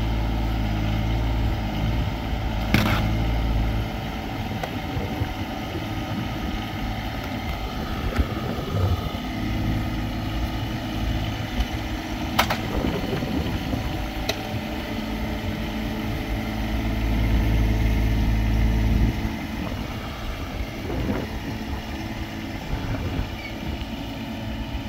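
John Deere compact tractor's diesel engine running under load as its front loader lifts, the engine note swelling and easing as it works. A few sharp clanks stand out, about three seconds in and twice around twelve to fourteen seconds in.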